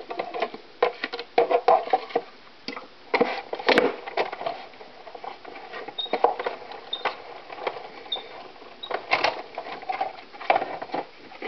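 Sizzix Big Shot die-cutting and embossing machine being hand-cranked, its rollers pressing an embossing-folder sandwich through, with irregular clicks and clunks. A few short high squeaks come about halfway through.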